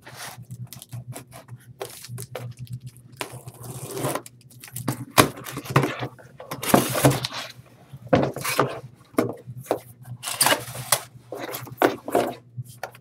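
Cardboard shipping box being opened by hand: irregular rustling, scraping and tearing of cardboard and packing, over a faint low steady hum.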